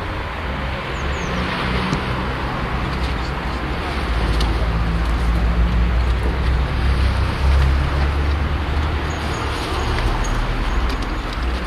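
Road traffic on a wet street: a steady tyre hiss with a low engine rumble that grows louder about four seconds in.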